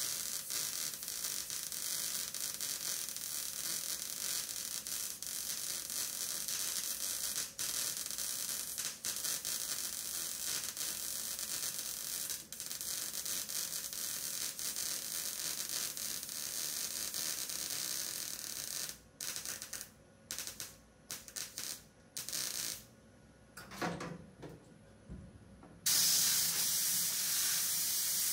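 Wire-feed welder arc crackling and hissing as a steel shifter-mount plate is welded into the car's floor pan: one long continuous bead, then a string of short tack welds with pauses, then another steady run near the end.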